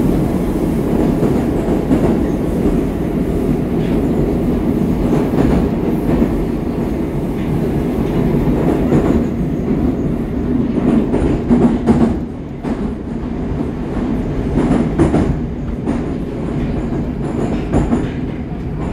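Moscow Metro train heard from inside the carriage, running through the tunnel with a steady low rumble and the clack of wheels over rail joints. The noise eases about twelve seconds in as the train slows for the next station.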